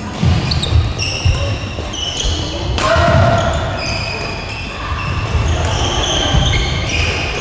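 Badminton players' court shoes squeaking in short, high-pitched squeals on a wooden gym floor during a doubles rally, with thudding footsteps and one sharp hit about three seconds in.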